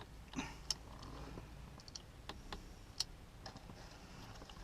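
Faint, scattered light clicks and small rattles from hands working plastic trim and wiring connectors around the steering column.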